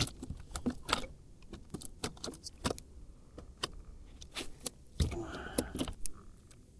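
Fishing tackle being handled: a string of small irregular clicks and clinks from the rod and baitcasting reel, with a brief denser rattle about five seconds in.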